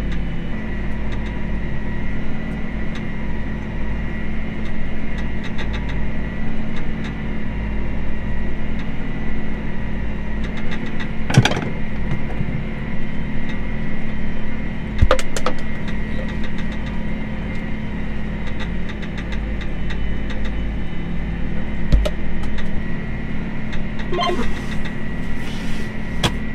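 Tractor engine running steadily with a constant high whine, broken by a few sharp knocks.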